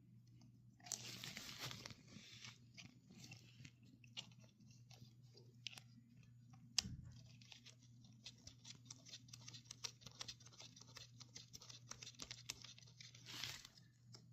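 Faint handling noises of a Tusk motorcycle chain riveting tool as its riveting pin is screwed in: scattered small metal clicks and ticks with brief rustling, and one sharper knock about seven seconds in, over a steady low hum.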